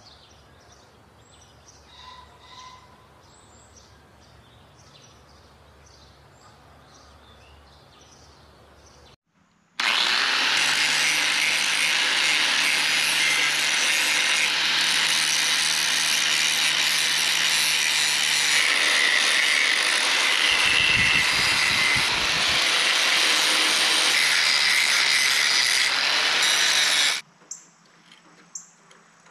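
Angle grinder running and grinding steel on a broken tiller's tine mounting plate, preparing it for welding. It starts about ten seconds in, runs steadily and loudly for about seventeen seconds, and cuts off suddenly; before it there is only quiet outdoor background with faint chirps.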